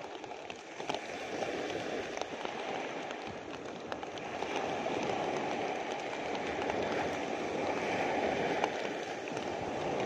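Rain ticking on a clear plastic sheet close to the microphone, over the steady wash of small waves breaking on the shore, which grows a little louder about halfway through.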